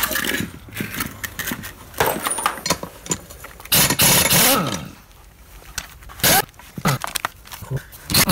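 Pneumatic impact wrench running in short bursts as it undoes the nuts holding a motorcycle's rear sprocket to the wheel hub, the longest and loudest burst about four seconds in.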